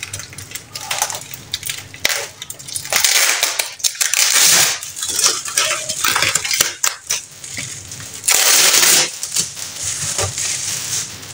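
Thin plastic bags and snack packets crinkling and rustling as they are handled, in irregular stretches, loudest about three to four seconds in and again near nine seconds.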